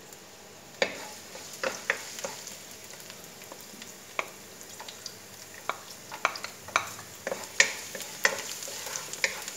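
Chopped garlic frying in oil in a nonstick wok, a low sizzle, with sharp clicks and taps of a wooden spatula stirring it. The taps come more often in the second half.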